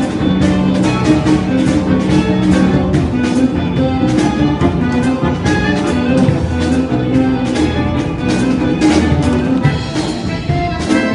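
Instrumental music with sustained melodic tones over a steady beat.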